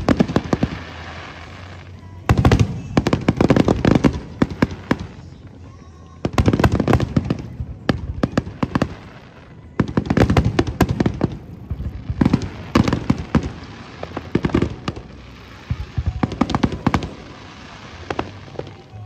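Aerial fireworks shells bursting in rapid volleys. About six clusters of sharp bangs and crackles come roughly every three seconds, each lasting a second or two.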